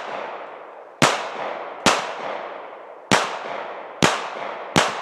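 Five shots from a Glock .40 caliber pistol, fired about one a second at an uneven pace. Each loud crack is followed by a reverberant tail that fades over roughly a second.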